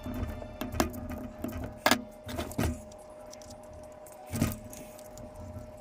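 A handful of clicks and light metallic clinks from hands working on a radio-controlled crawler truck with small hand tools, the strongest about two seconds and four seconds in, over a faint steady hum.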